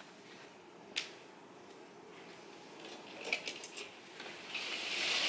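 Curtains being drawn open along their rail: a few quick clicks, then a swishing rush that swells near the end. A single light knock comes about a second in.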